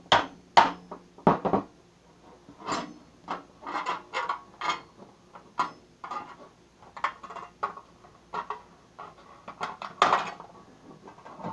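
A knife being worked into the thin sheet metal of a cookie tin to cut slashes: an irregular run of sharp metallic taps and clanks, with a few louder knocks near the start and about ten seconds in.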